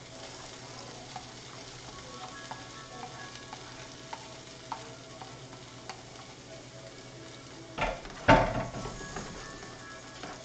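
A frying pan of pork rinds in tomato sauce sizzling as chopped onions are scraped off a wooden cutting board into it and stirred in. A loud burst of scraping and sizzle comes about eight seconds in.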